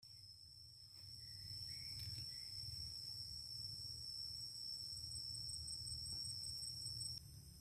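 Insects trilling in a steady, high-pitched chorus of several tones over a low rumble; the loudest tone cuts off suddenly near the end.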